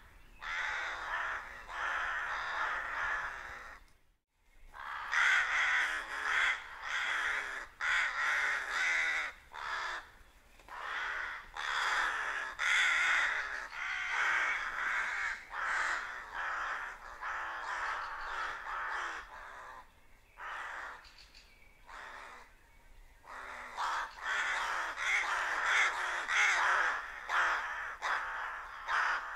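A large flock of rooks cawing at dusk, a dense chorus of overlapping harsh calls. The sound cuts out for a split second about four seconds in and thins briefly past the twenty-second mark.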